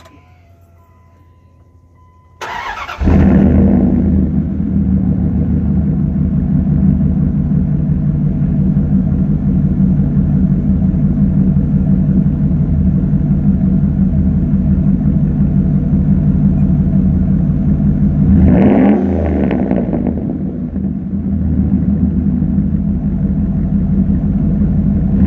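Dodge Ram 1500's 5.2 L (318) V8, on shorty headers and a Y-pipe with no muffler, cranked by the starter and catching about two and a half seconds in while already warm, then idling loudly. About 18 seconds in it is revved once to about 3,000 rpm and falls back to idle, and a second rev begins at the very end.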